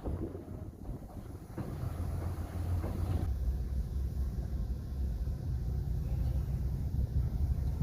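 Heavy earthmoving machine's diesel engine running with a steady low rumble, getting louder about a second and a half in and then holding.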